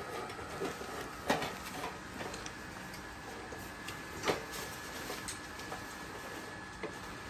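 A portable gas camping stove being handled by a small monkey on a wooden table: scattered light clicks and taps, with two sharper knocks about a second in and about four seconds in.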